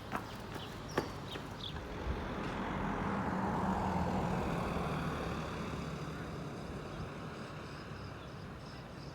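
A motor vehicle driving past, its noise and low engine hum swelling to a peak about four seconds in and then fading away.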